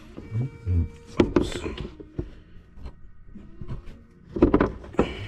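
Irregular clinks, knocks and rustling of a 27 mm deep impact socket being worked down among the engine parts toward the oil pressure sensor, with the loudest knocks about a second in and again past four seconds.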